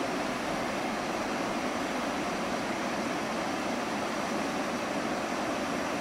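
Steady hiss of a cassette-gas camp burner on high heat under a cast-iron skillet of seafood paella, with the broth simmering in the pan.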